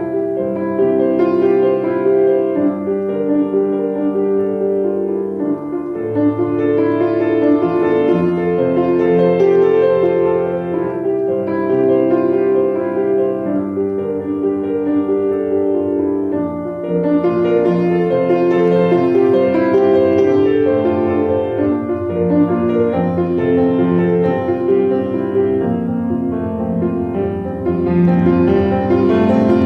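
Solo piano playing a flowing piece of sustained chords under a melody.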